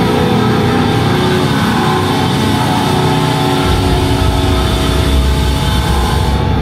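Hardcore band playing live at full volume: a dense wall of distorted guitars, bass and drums. The low end grows heavier a little past halfway.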